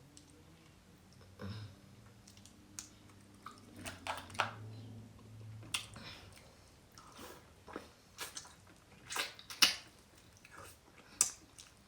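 A person chewing and eating a mouthful of food, with wet mouth smacks and irregular sharp clicks.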